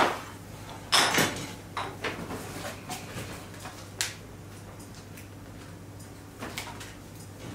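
Handling noises on a wooden tabletop: small hard panels set down and a paper decal sheet handled and peeled, giving a few short knocks and rustles, the loudest about a second in, over a steady low hum.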